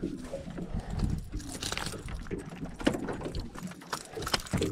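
Fishing reel being cranked to bring in a hooked chain pickerel, with irregular clicks and knocks as the fish is lifted to the boat.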